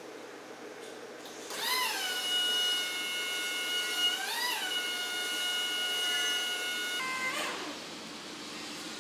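Electric motor-driven hydraulic pump on the Brandon telehandler whining as the boom is operated. It starts about one and a half seconds in, drops in pitch as it takes the load and holds steady, rises and falls once near the middle, then cuts off and winds down with a short falling tone.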